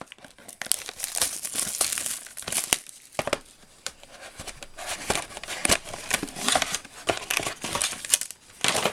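Plastic wrapping on a trading-card box being crinkled and torn open, an irregular run of sharp crackles with a few quieter gaps.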